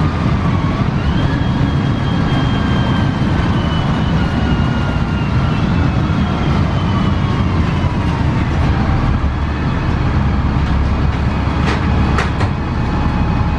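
Ride inside a 2002 Gillig Advantage transit bus with a Cummins ISC diesel and Voith 864.3E transmission. The drivetrain rumbles under a thin whine that steps up about a second in, then glides slowly down in pitch before holding steady. Two sharp clicks come near the end.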